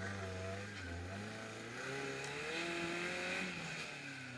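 Off-road 4x4's engine revving up and down under load as it climbs a steep dirt slope, its pitch rising and dipping several times.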